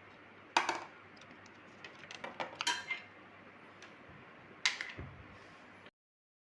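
Light clicks and clinks of small hard plastic scooter parts being handled during disassembly. There is one about half a second in, a cluster around two to three seconds, and another near five seconds, then the sound cuts out abruptly.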